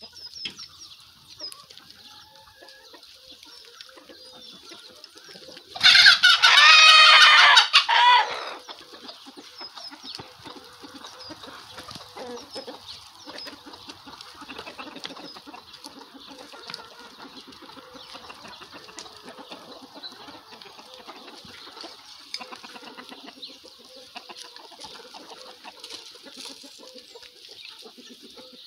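A flock of backyard chickens clucking steadily as they feed. About six seconds in, one chicken close by gives a loud drawn-out call that lasts over two seconds.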